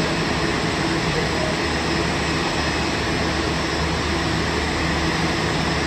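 Boeing 787-9's Rolls-Royce Trent 1000 turbofans at taxi idle, a steady jet rush with a low hum as the airliner rolls slowly toward the gate.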